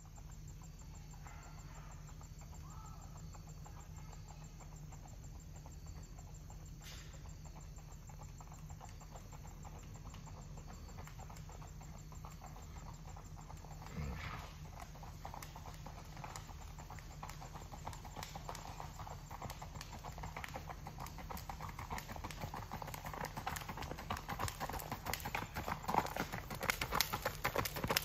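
Hoofbeats of a Missouri Fox Trotter gelding gaiting on a gravel lane, growing steadily louder as the horse approaches, loudest near the end. A steady low rumble lies underneath.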